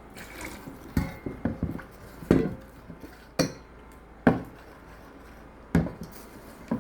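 Spoon knocking and scraping against a bowl while stirring thick okpa (bambara nut flour) batter: irregular sharp knocks, with a quick run of them about a second and a half in.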